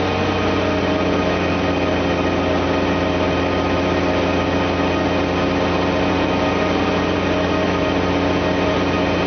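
A heavy engine idling steadily, an even low hum with a stack of steady overtones and no change throughout.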